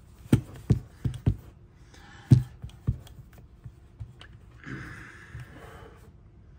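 Handling noise from two small revolvers, an H&R 732 and a Ruger LCR-X, held together in the hands: a run of light knocks and clicks as the guns bump against each other and are shifted into line, the loudest about two seconds in, then fainter ticks.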